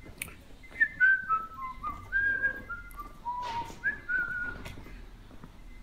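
A person whistling a short tune: about a dozen clear notes stepping up and down, from about a second in until shortly before the end, with a couple of brief knocks.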